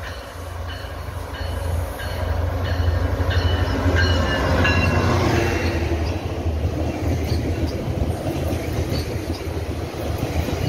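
GO Transit MPI MP54AC diesel locomotive approaching and passing at speed, its rumble building to a peak about four seconds in. A repeating high tone drops in pitch as the locomotive goes by. Then a long string of bilevel coaches rolls past, with wheels clicking over the rail joints.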